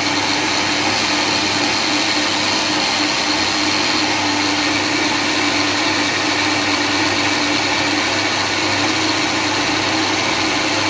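Electric food processor running steadily, its blade grinding raw mutton mince with onion, tomato, garlic and spices into a thick kofta paste. A loud, even motor whir with a low hum under it.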